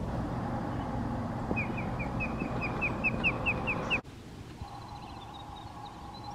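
Osprey calling: a run of about a dozen short, sharp whistled notes, about five a second and growing louder, over a low rumble. About four seconds in the sound cuts off, and a quieter background with faint distant bird chirps follows.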